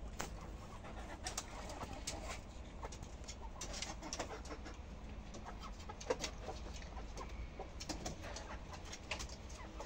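Chickens clucking in short, low calls as they settle on the roost, with scattered short rustles and clicks throughout and a steady low rumble underneath.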